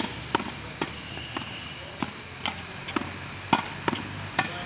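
Tennis ball being volleyed against a practice wall: sharp hits of the racket on the ball and of the ball on the wall follow one another, about two a second.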